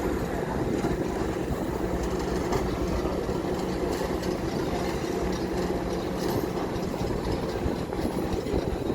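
Steady mechanical rumble of a vehicle in motion, with a low, even hum and a few faint clicks.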